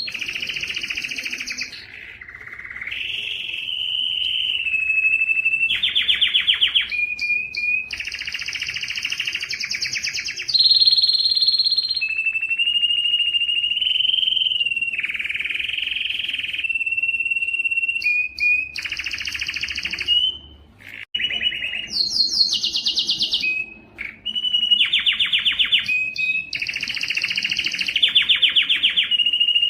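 Domestic canary singing a long, continuous song: phrases of fast repeated trilled notes alternating with drawn-out, steady whistled notes, with a couple of brief breaks in the second half.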